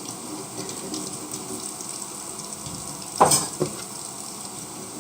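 Chopped onion frying in a big pot, a steady sizzle, with two short knocks of a utensil or pan a little after three seconds in.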